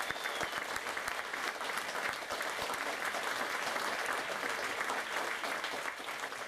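Audience applauding steadily with dense clapping at the end of a live song.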